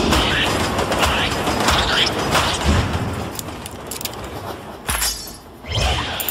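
Cartoon action sound effects: a rapid string of thuds, crashes and clattering hits over music, with a heavy low thump about five seconds in, a brief lull, then another low hit.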